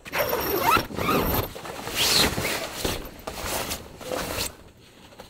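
Zippers on the doors of a Campvill A-tent 2.0 being pulled along in several quick strokes, with short pauses between them, stopping shortly before the end.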